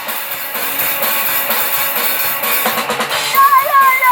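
Live band playing an instrumental passage, the drum kit to the fore with kick and snare hits. About three seconds in, a wavering high pitched line comes in over it.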